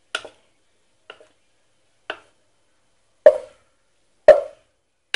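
Rehydrated textured soy protein being tipped from a bowl into a cooking pot: separate soft knocks and plops about once a second. Two much louder knocks come in the second half, as the bowl knocks against the pot.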